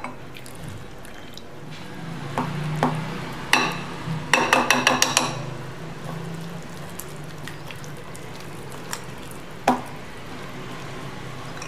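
Water poured from a glass into flour in a ceramic bowl, then a wire whisk mixing it into batter. Midway, a quick run of clicks for about a second as the whisk wires strike the bowl, with softer stirring before and after.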